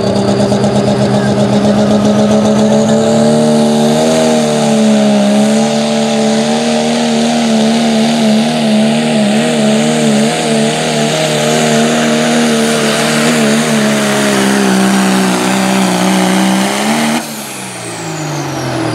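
Diesel pickup truck's engine held at full throttle under heavy load while pulling a sled, a steady high-revving note for about seventeen seconds. Near the end the throttle is let off and the engine winds down, with a high whistle falling in pitch.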